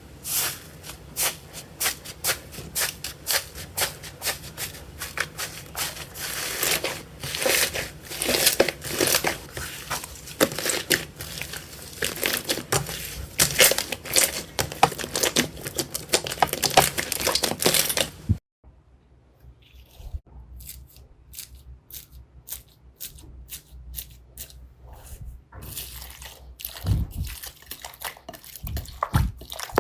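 Slime being squeezed and worked by hand, giving dense, fast crackling and popping clicks. The sound breaks off about two-thirds of the way in, then resumes as sparser, softer clicks and pops.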